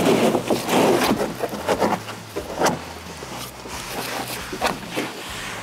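Carpet-style truck bed mat being laid into a pickup bed over a spray-in liner: irregular rustling, scraping and soft knocks as it is flopped down and pressed flat by hand, busiest in the first two seconds.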